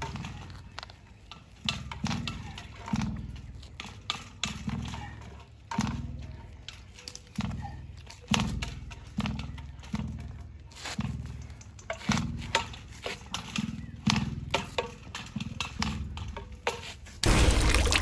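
Black plastic drop pipe of a submersible well pump being pulled hand over hand up out of the well casing, each pull giving a low thump and a brief rumble, about one a second and unevenly spaced. Near the end a sudden loud rushing noise sets in.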